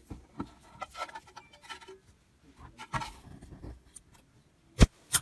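Slime being pressed and handled by hand: irregular soft squishes, clicks and crackles, with a sharp, louder click near the end.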